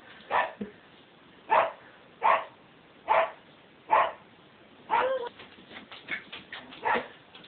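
A puppy barking through a closed glass door, about seven sharp barks roughly one a second, with a whining yelp about five seconds in. Between the last barks comes a run of quieter short taps as it jumps up at the glass.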